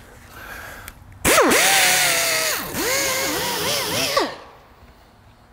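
Air-powered right-angle die grinder with a Roloc abrasive disc running against a flywheel's friction face, scuffing it to a fresh surface for a new clutch. A faint air hiss comes first, then the whine starts sharply about a second in, dipping in pitch as the disc is pressed on. It spins down and stops near the end.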